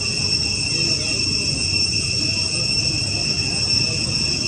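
Steady high-pitched drone of a forest insect chorus, holding two unbroken pitches, over a low background rumble.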